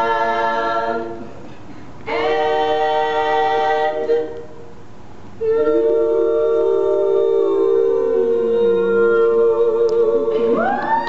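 Women's a cappella quartet singing held chords in close harmony: two short chords, each followed by a brief pause, then a long sustained chord from about five seconds in, in which a lower voice slides down and back up before the harmony shifts near the end.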